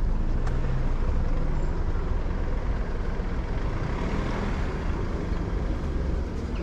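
Street traffic: a large road vehicle's engine running low and steady, with road noise.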